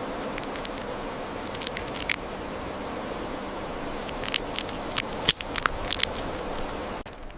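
Steady hiss with sharp clicks and crackles scattered through it, most of them in the second half, cutting off abruptly near the end.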